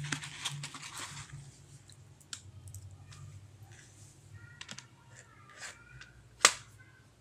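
Light clicks and ticks of a beaded necklace chain being handled, with one sharper click near the end, over a low steady hum.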